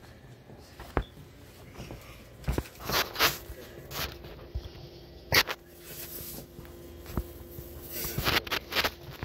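Footsteps and rustling handling knocks, irregularly spaced, as a handheld phone is carried while walking; a faint steady hum comes in about halfway through.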